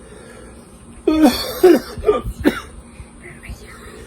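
A man coughing hard four times in quick succession, about a second in: a capsaicin cough brought on by eating a Carolina Reaper pepper.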